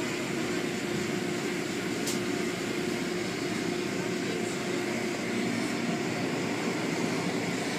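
Automatic car wash machinery running: a steady rushing noise with a steady hum under it, and a brief click about two seconds in.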